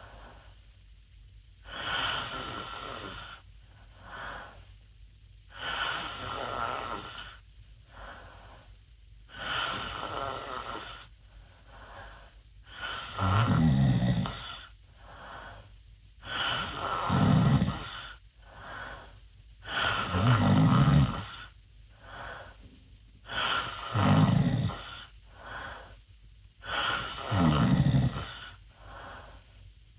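A teenage boy snoring loudly with his mouth open: a snore about every three and a half seconds, with a softer breath between. The first few are mostly breathy, and from about halfway they turn deeper and louder.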